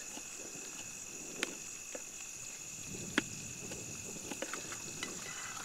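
Crickets chirring steadily in a constant high drone, with a few light clicks about a second and a half, two and three seconds in.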